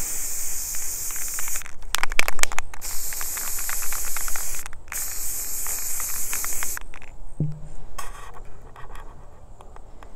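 Aerosol spray paint can spraying onto a styrofoam block in three hisses of about two seconds each, with a few clicks between the first two; the spraying stops about seven seconds in.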